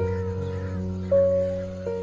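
Background music: held synth-like notes over a steady low bass, with the melody note changing about a second in and again near the end.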